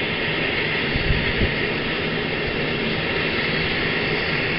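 Bell 430 helicopter's twin turboshaft engines and main rotor running on the ground, a steady loud rushing noise. A few brief low thumps come about a second in.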